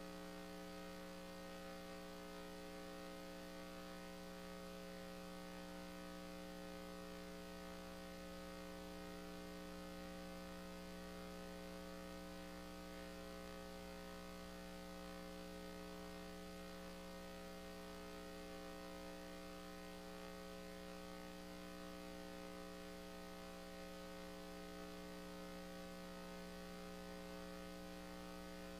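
Faint, steady electrical mains hum: a buzz made of several steady tones, unchanging throughout.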